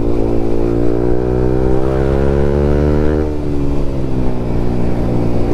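Sport motorcycle's engine pulling smoothly, rising in pitch for about three seconds as the bike accelerates, then dropping as the throttle eases off.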